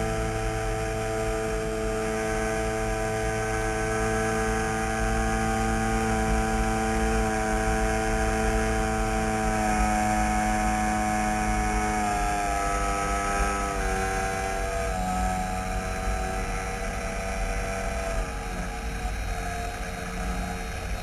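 Radio-controlled model airplane's motor and propeller running steadily, heard from a camera mounted on the plane, with wind rushing over the microphone. The pitch shifts a few times as the throttle changes, and the sound eases off a little near the end.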